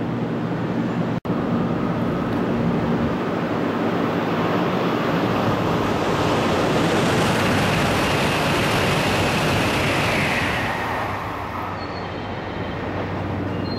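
N700-series Shinkansen running through the station on the middle track: a rush of air and wheel noise that builds, holds for several seconds, then fades, with a high whine sliding down in pitch as it goes. A steady low hum lies underneath.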